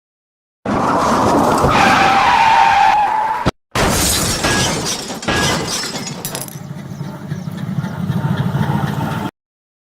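Dubbed car-crash sound effect: tyres screeching for about three seconds, then a crash of breaking glass and impacts that settles into a rumbling slide before cutting off suddenly.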